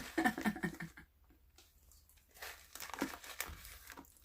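Plastic snack packaging, a pouch of granola, crinkling and rustling in short irregular bursts as it is handled, starting about two and a half seconds in.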